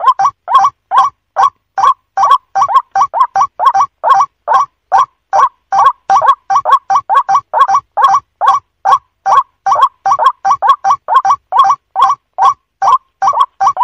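White-breasted waterhen (ruak-ruak) calling: a fast, unbroken run of short repeated notes, about three to four a second.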